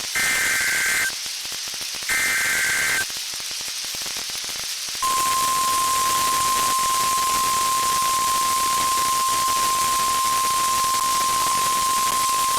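NOAA Weather Radio Emergency Alert System signal over radio hiss. First come the last two of the three SAME data header bursts, each about a second of two-tone digital warble, a second apart. From about five seconds in, the steady 1050 Hz weather-radio warning alarm tone begins, announcing a severe thunderstorm warning.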